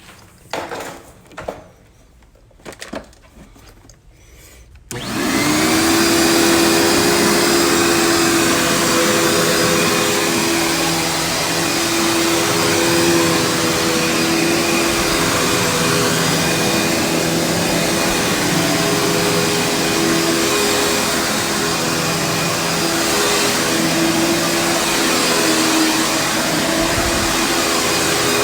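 A few knocks and clunks, then a Panasonic vacuum cleaner switches on about five seconds in: its motor hum climbs quickly and settles, and it runs steadily with its brush roll on carpet.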